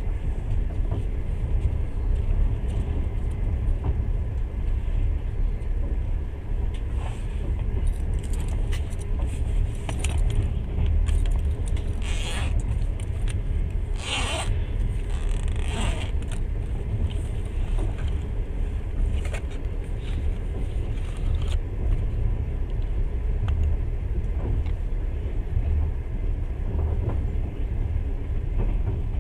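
Passenger train running at speed, heard from inside the carriage as a steady low rumble of wheels on rails. A few short rattles and higher hissing sounds come through about halfway.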